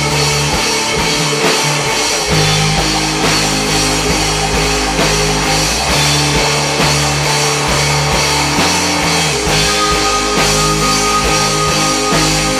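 Pop rock band playing an instrumental stretch with a steady drum kit beat, electric guitar and bass. A single high note is held for about two seconds near the end.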